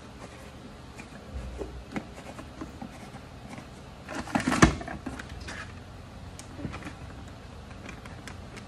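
Plastic feed-supplement tubs and lids being handled: scattered light clicks and knocks, with a louder clatter about four and a half seconds in.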